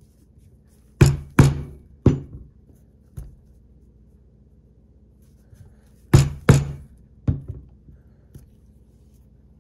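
Hand-held leather hole punch being driven through a belt strap into a poly board: two groups of sharp knocks, each two loud strikes followed by one or two lighter ones.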